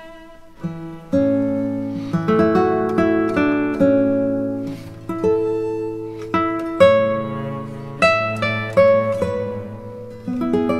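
Background music: an acoustic guitar plucking a melody of single notes over held bass notes, each note starting sharply and fading.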